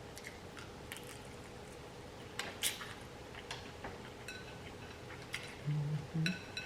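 Close-miked wet chewing and lip smacks while eating buttery shrimp, with scattered sharp clicks. Near the end come two short low hums of enjoyment.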